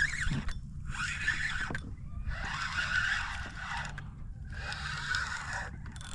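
Penn Spinfisher VI spinning reel working a hooked snook: a rasping whir in four or five stretches with short pauses between them.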